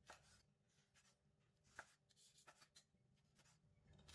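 Faint, scattered taps of a kitchen knife cutting through roasted pork shoulder onto a wooden chopping board, the clearest a little under two seconds in.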